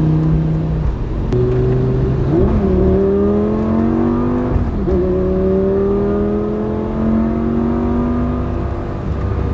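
Lamborghini engine heard from inside the cabin, accelerating hard on a race track. Its pitch climbs and drops with each upshift: once about a second in, again around two and a half seconds, and again at about four and a half seconds. Each time it then climbs steadily again.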